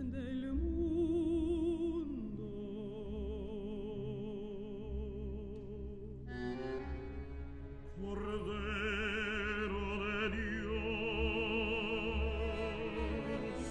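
Classical music with operatic singing: a voice holds long notes with wide vibrato, and the music grows fuller and louder about eight seconds in.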